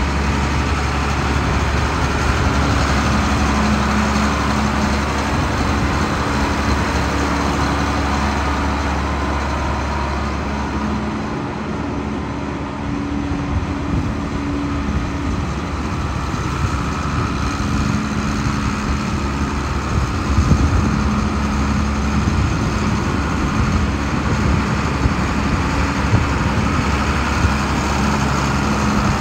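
John Deere 8650 four-wheel-drive tractor's diesel engine running at a steady low speed as the tractor drives slowly, the sound easing briefly about eleven seconds in as it turns.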